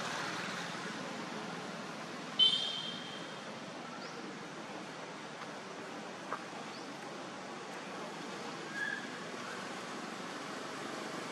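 Steady outdoor background hiss, with one short high-pitched squeal about two and a half seconds in and a fainter brief chirp near the end.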